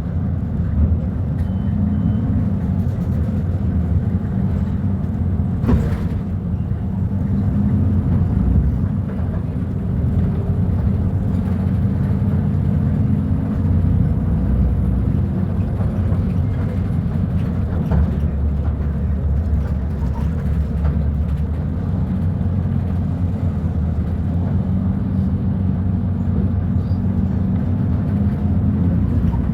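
Volvo B290RLE city bus engine running, a steady low rumble whose pitch shifts several times, with one sharp click about six seconds in.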